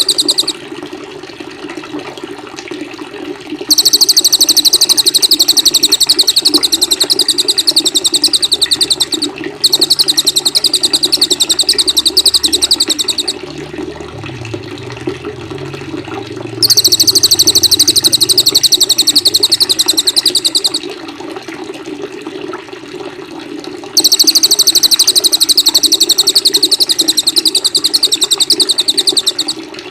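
A small songbird's rapid, evenly repeated high trill comes in four bursts of about four to six seconds, with short pauses between them. This is bird-song training audio for a white-rumped shama to copy, played over a steady sound of running water.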